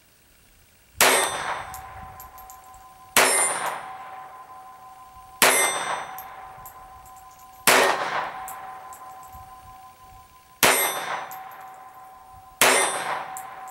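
Astra Cub .22 Short semi-automatic pocket pistol firing six single shots, about two seconds apart. Each shot is followed by a lingering metallic ring that fades before the next shot.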